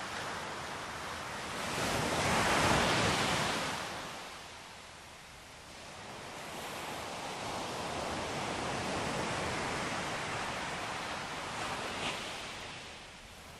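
Ocean surf breaking on a beach: one wave swells and crashes about two to three seconds in, its wash draining away, then a longer, softer surge builds and fades near the end.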